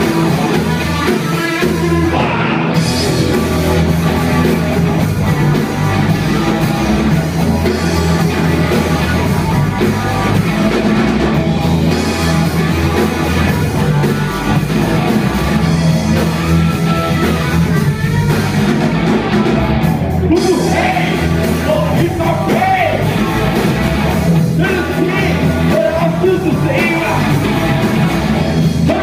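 Live rock band playing loud and without a break: electric guitars through Marshall amps, bass guitar and drum kit, with a singer's voice over the top.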